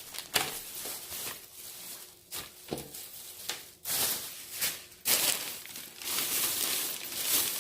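Rustling and handling noises, as of clothing and small items being moved about, with several sharp clicks and knocks spread through it and a steadier rustle over the last couple of seconds.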